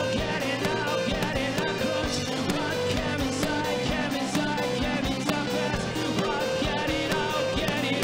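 Live rock band performing: a male singer's lead vocal over electric guitar, keyboards and drums, with a riff of short notes repeating throughout.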